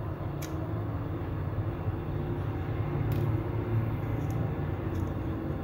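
A steady low rumble throughout, with a few faint light clicks of a small knife and fingertips working the skins off soaked garlic cloves.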